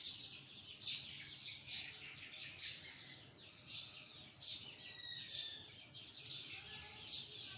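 Birds chirping repeatedly, short high chirps coming about once a second.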